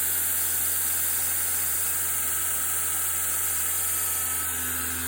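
Heretic H2 belt grinder running unloaded at about 7,600 surface feet per minute: a steady hiss of the abrasive belt over a low motor hum, with a buzz from the drive wheel, which is not yet balanced. It gets slightly quieter near the end.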